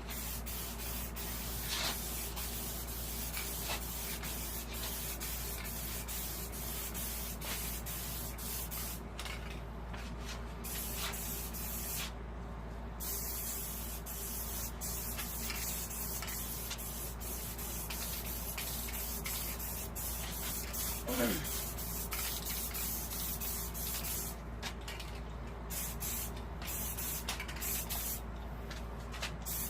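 Aerosol spray can of Krylon ColorMaster paint hissing in long bursts while coats of white paint go on, with several short breaks between passes. About two-thirds of the way through there is a brief sound falling in pitch.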